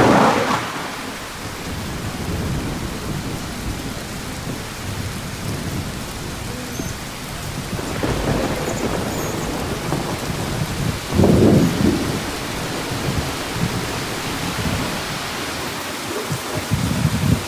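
Heavy rain falling steadily, with thunder rumbling; two louder claps, one at the very start and another about eleven seconds in.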